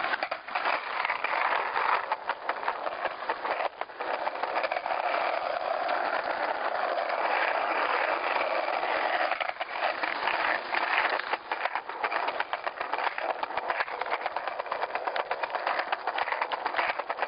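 Muffled rustling, scraping and knocking of a handheld camera's microphone being jostled while walking, over a steady noisy background.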